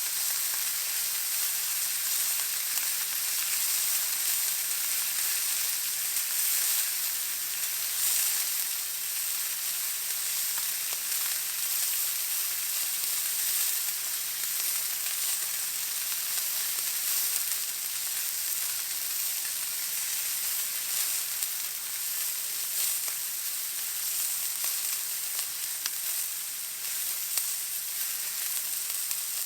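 Steak searing in a hot pan: a steady, high sizzle with a few faint crackles.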